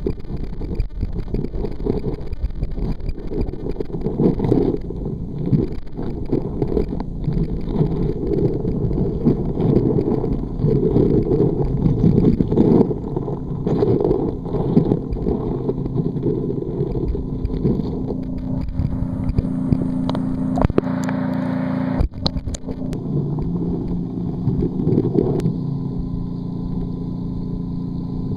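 Muffled underwater rumble of water moving around a submerged waterproof camera, uneven and deep. A steady low hum joins in during the second half, with a few sharp clicks about two-thirds of the way through.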